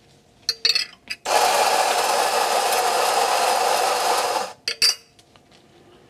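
Mazzer Kold espresso grinder grinding a dose into a portafilter for about three seconds: its motor starts a little over a second in, runs steadily with an even grinding noise, and winds down with a falling tone as it stops. A few short clicks and knocks come just before and after.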